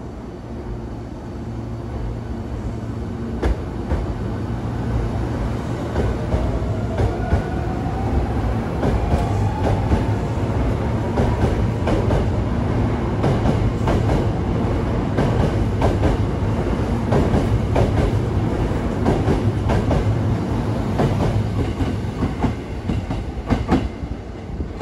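Hankyu 1300 series electric train accelerating along the platform. Its motor tone rises in pitch over several seconds, over a steady low rumble, and then comes a long run of wheel clicks over the rail joints as the cars go by.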